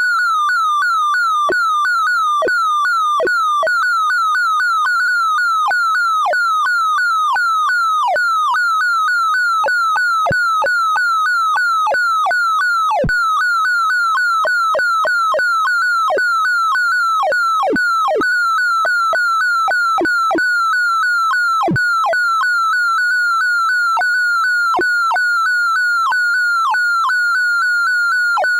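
Computer-generated sorting-algorithm sonification: a synthesized tone whose pitch follows the values being accessed in the array. It warbles rapidly up and down in a narrow high band, with many quick downward sweeps cutting across it.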